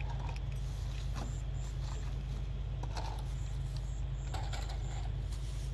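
Steady low engine hum, even and unchanging, with faint short high chirps and light ticks over it.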